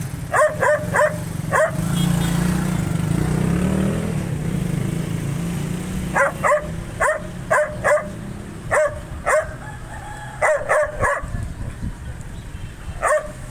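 Dog barking in short, sharp barks, in bursts: four quick barks at the start, a run of about ten barks from the middle on, and two more near the end. A low steady rumble runs underneath.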